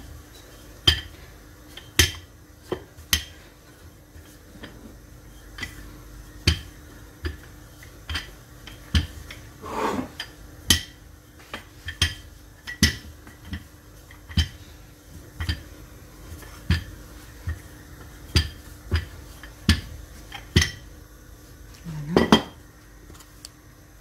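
Wooden rolling pin rolling out pastry dough on a stone countertop, knocking against the stone in short sharp clicks about once or twice a second.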